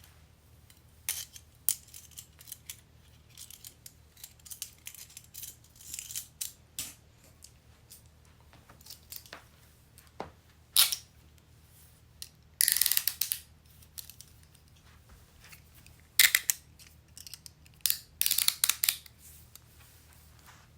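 Metal handcuffs being worked: scattered sharp metal clicks and a few quick runs of ratcheting clicks, the loudest runs about two-thirds of the way in and near the end, with short pauses between.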